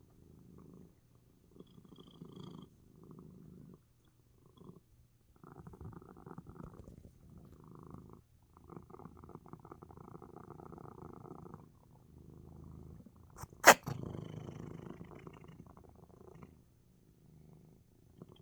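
Domestic cat purring in stretches of a second or two, broken by short pauses between breaths. One sudden, loud, sharp burst cuts in about two-thirds of the way through.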